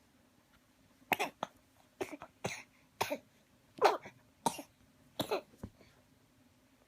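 Baby making a series of short, cough-like vocal bursts, roughly one every half second to second, starting about a second in.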